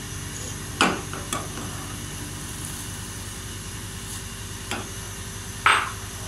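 Steel ladle stirring hot milk in a steel pot, clinking against the pot a few times, the loudest clink near the end, over a steady hiss.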